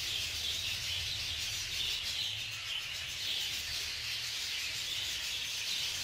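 Steady background chatter of a flock of budgerigars, a continuous high warbling haze with no single call standing out, over a low rumble.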